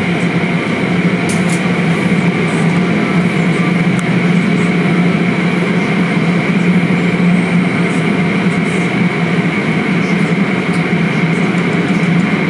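Automatic car wash running, heard from inside a car: spinning cloth brushes and water spray working over the car with a loud, steady rumble, a low machinery hum and a hiss of spray.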